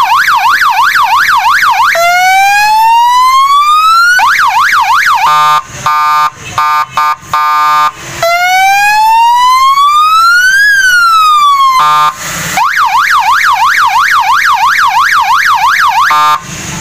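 Small electronic police-style siren for a bike or car, sounding through its compact horn speaker and switched through several tones: a fast warbling yelp of about four sweeps a second, a slow wail that rises and, later, rises and falls, and a choppy stuttering pulse. It cuts off shortly before the end.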